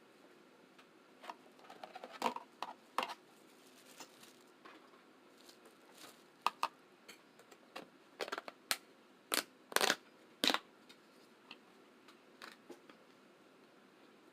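Close-up eating sounds of a seafood boil: irregular sharp clicks, cracks and smacks, coming thicker and louder from about eight to ten and a half seconds in.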